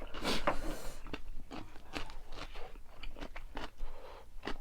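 A person biting and chewing crisp food close to the microphone: a rapid series of crunches, densest in the first second.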